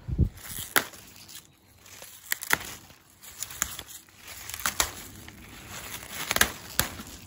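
Garlic mustard leaves rustling and stems snapping as they are grabbed and pulled by hand, a string of irregular sharp snaps and crackles. A dull low thump at the very start.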